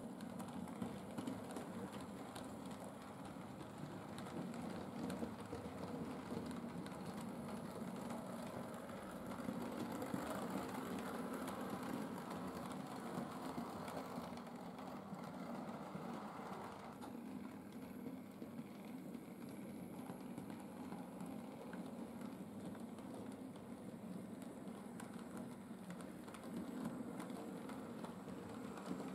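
Model railway trains running on the track: small electric locomotive motors humming and wheels rumbling with light clicks over the rail. The higher rattle drops away a little over halfway through.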